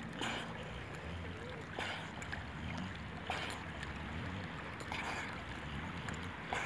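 Water sloshing and splashing around a swimming Staffordshire Bull Terrier, with a short swish about every second and a half over a steady low rumble.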